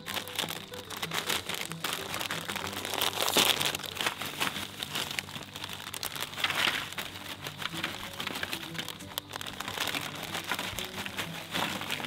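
Foil Doritos chip bag crinkling and rustling as tortilla chips are shaken out of it onto paper plates, busiest around three seconds in and again past six seconds.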